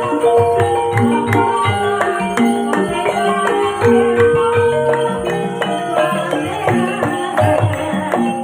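Live Javanese gamelan music: tuned struck bars play a repeating melody of ringing notes over regular low drum strokes from a kendang, the accompaniment to ebeg trance dancing.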